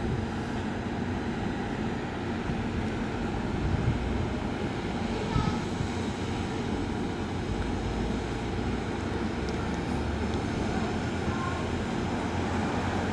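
Steady low drone from a parked KiHa 183 series diesel railcar set, heard before its engines are started.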